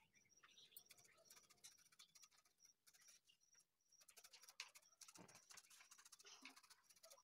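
Near silence with faint quick tapping of a paintbrush dabbing paint onto paper, and a faint high chirp repeating every half second or so.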